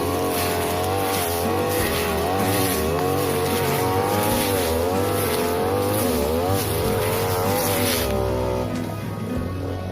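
Two-stroke 42cc brush cutter engine running at high revs, its pitch wavering as the blade takes the load of tall grass, then falling away about eight seconds in as the throttle eases. Background music plays underneath.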